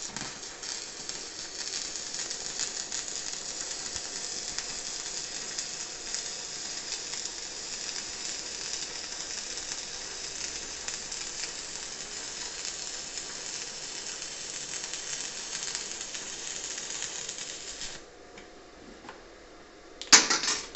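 Stick-welding arc from a Daniu MINI MMA-200 inverter welder burning a 2.5 mm electrode on thin sheet steel: a steady crackling sizzle for about eighteen seconds, then it cuts off. About two seconds later come a few sharp metallic knocks.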